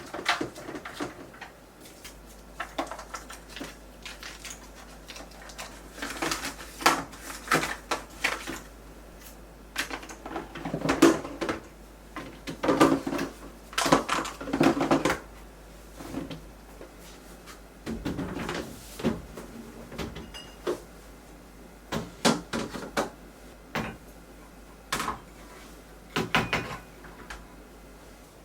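Containers, bottles and fridge bins knocking and clattering as they are taken out and set back into a refrigerator, in irregular bursts with short pauses between.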